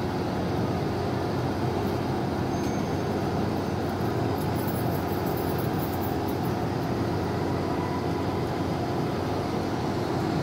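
Helium gas venting from an MRI scanner's rooftop quench pipe, a steady rushing noise that holds even throughout. It is the sign of the superconducting magnet quenching, its liquid helium boiling off and being dumped outside.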